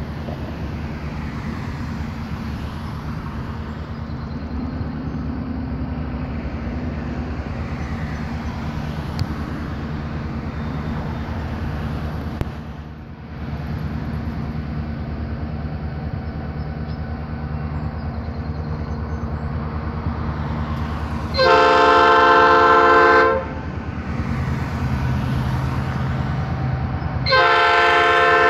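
Diesel freight locomotive approaching with its engine running as a steady low drone, then sounding its many-toned air horn in two long blasts about six seconds apart, the second starting near the end: a grade-crossing warning.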